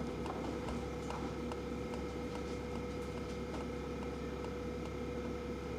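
Steady electrical hum with faint, regular ticks, about two a second.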